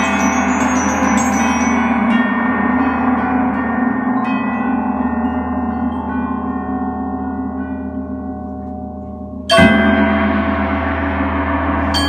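Percussion ensemble playing metallic struck instruments: a chord of many ringing tones slowly dies away with a few soft mallet strokes. About nine and a half seconds in comes a sudden loud strike that rings on.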